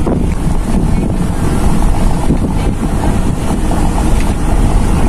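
Wind buffeting the microphone at an open window of a moving car, mixed with road noise: a loud, steady, low rumble.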